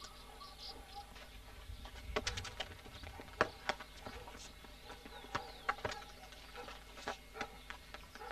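Scattered sharp knocks and scuffs at irregular intervals, from children's footsteps and a football being kicked on paving, with a few faint bird chirps near the start.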